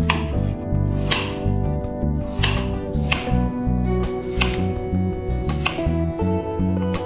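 Kitchen knife slicing through raw peeled potato and tapping the wooden cutting board, one slow cut about every second.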